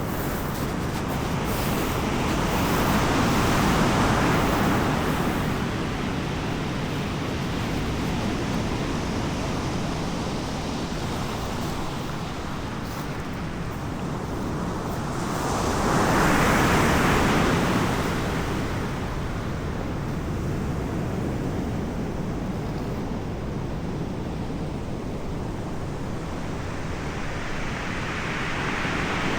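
Ocean surf: waves breaking and washing in, three slow swells of rushing noise about twelve seconds apart over a steady background hiss.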